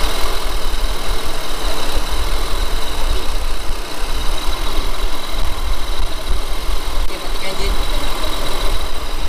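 Toyota Alphard engine idling steadily, run to circulate fresh power steering fluid through the system during a fluid flush.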